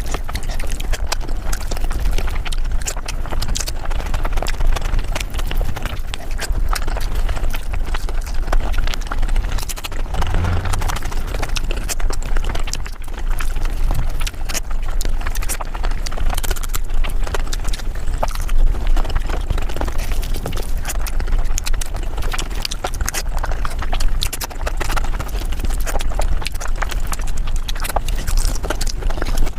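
Mukbang eating sounds sped up about five times: rapid, continuous chewing, smacking and mouth clicks from eating paneer butter masala, crowding into a dense, even chatter of clicks.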